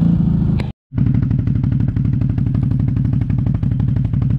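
CFMoto 850 XC quad's engine idling close by, a rapid, even putter that cuts out for a moment just under a second in and then carries on.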